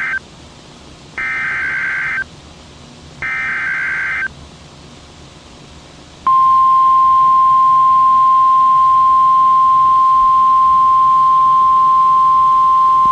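Emergency Alert System SAME header on NOAA Weather Radio: short, loud, one-second bursts of warbling digital data tones, the last two coming about a second apart. A little over six seconds in, the long, steady, single-pitched 1050 Hz warning alarm tone sounds, announcing a severe thunderstorm warning.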